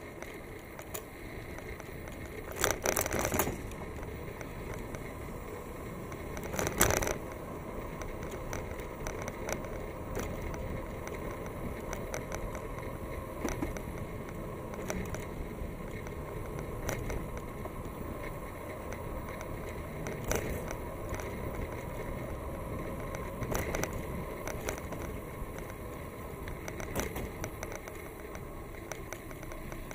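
Bicycle riding along a paved path: steady rolling tyre noise with frequent light clicks and rattles from the bike, and two louder bursts of rattling about 3 and 7 seconds in.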